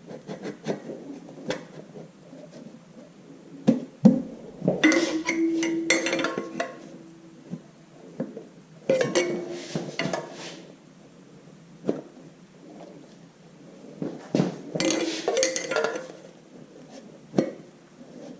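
Metal parts clinking and knocking against each other as a cylinder sleeve and hand tools are handled at a tractor engine block. The clinks come in three clusters, about four, nine and fifteen seconds in, and the first two carry a short ringing note.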